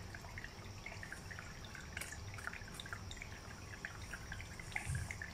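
Cats crunching dry kibble from stainless steel bowls: many small, irregular crunches and clicks, with a soft low knock near the end.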